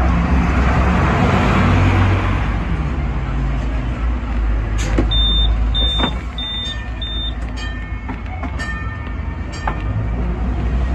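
Low, steady rumble inside a Hong Kong sixth-generation teak-bodied double-decker tram. About five seconds in there are four short, evenly spaced high electronic beeps and a few sharp clicks.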